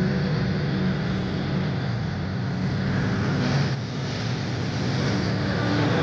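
Background pop music with sustained low synth tones, with a brief noisy sweep about three and a half seconds in.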